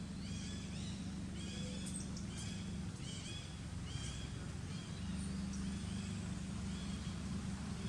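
A run of short, high-pitched animal chirps repeating about twice a second, fading after about five seconds, over a steady low hum.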